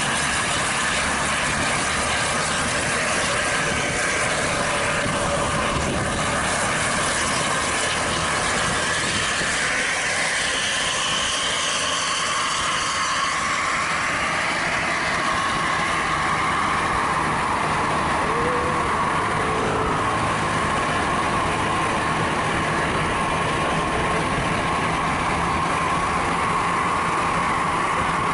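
Steady vehicle engine and road noise from moving in traffic close beside a coach bus, with a steady whine that grows stronger about halfway through.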